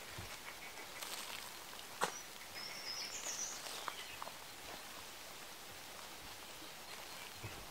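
Footsteps of people walking on dry leaf litter on a forest floor, soft crunches and rustles, with one sharper snap about two seconds in. A brief high bird call a little after that.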